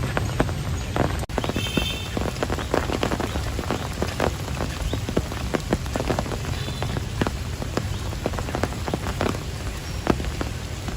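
Heavy rain falling steadily, with many large drops tapping sharply and irregularly on a nearby surface. The sound drops out for an instant about a second in.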